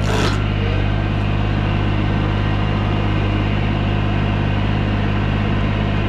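Bobcat E35 mini excavator's diesel engine running steadily at high revs, driving the Baumalight CXC530 mower head on its auxiliary hydraulics. A short sharp sound, falling in pitch, cuts in right at the start.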